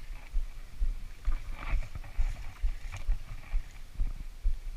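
Gusty wind buffeting the microphone in an uneven low rumble, with a few faint short rustles over it.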